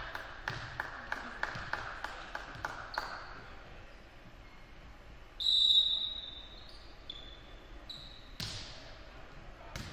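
Volleyball play on a gym floor. A run of sharp taps, about three a second, fills the first three seconds, and a loud, high sneaker squeak on the hardwood comes about halfway, with shorter squeaks after it. Two sharp hits near the end are the ball being struck.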